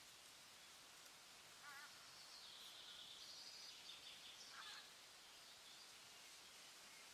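Near silence: faint outdoor ambience with a few distant bird calls, the clearest between about two and five seconds in.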